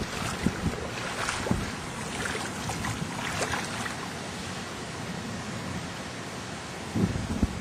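Rain and wind of a tropical storm, a steady rushing with scattered patters and gusts. Near the end a low rumble of thunder begins.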